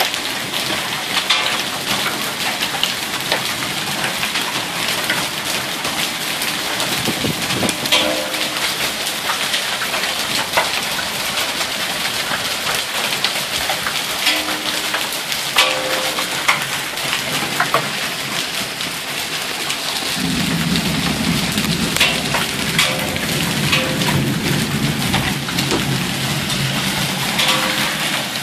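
Heavy thunderstorm rain pouring onto pavement and lawn, with small hailstones ticking on the concrete. About twenty seconds in, a low rumble of thunder sets in and keeps rolling.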